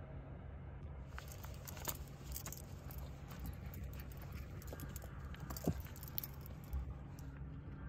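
Metal collar tags jingling in quick scattered clicks as a Cavalier King Charles spaniel puppy moves about, with one short, falling whimper a little past halfway. A steady low hum lies underneath.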